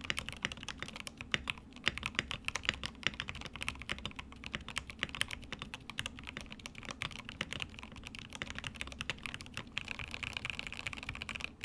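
Fast, continuous typing on a stock Fancy81 75% gasket-mounted mechanical keyboard with Gateron Pro Yellow switches and XDA keycaps, many keystrokes a second. It has a muted sound, which the reviewer puts down to the silicone dampener between the PCB and plate.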